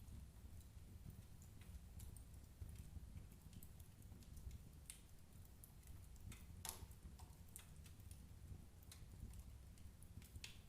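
Firewood burning in a fireplace, crackling faintly: scattered small pops and snaps, the sharpest about two-thirds of the way through, over a low steady rumble.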